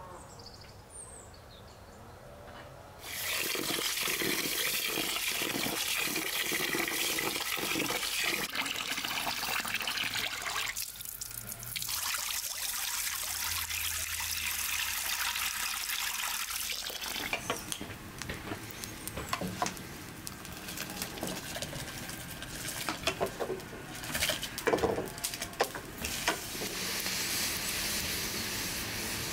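Water pouring and splashing as rice is washed in a bowl, starting about three seconds in, then a pot of water boiling hard as rice in it is stirred with a wooden spoon, with louder splashes and knocks near the end.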